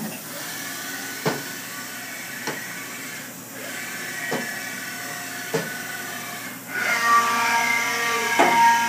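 Haas VF-6 vertical machining center's spindle running at speed with a steady whine, with a few sharp ticks here and there. About two-thirds in, the whine grows louder and fuller.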